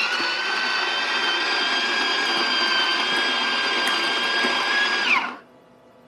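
De'Longhi La Specialista espresso machine's built-in burr grinder grinding a double dose of coffee beans into the portafilter: a steady motor whine over the grinding, which winds down and stops about five seconds in.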